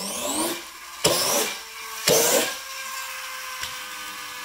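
Flywheel friction motor of a Tonka Clutch Popper toy car whirring as the car is pushed over the floor, its whine rising in pitch as the flywheel spins up. Two sharp clacks come about one and two seconds in, then the flywheel keeps up a steady whine that slowly drops in pitch.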